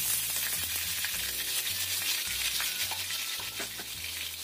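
Diced raw potatoes sizzling and crackling steadily in hot oil in a wok, freshly added for deep-frying.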